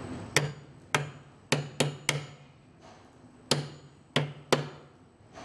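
Steel claw hammer striking a spring-steel hammer-on beam clamp, driving its steel tangs to bite into the edge of a beam flange. Eight sharp metallic strikes, each with a brief ring: five in quick succession, a pause of over a second, then three more.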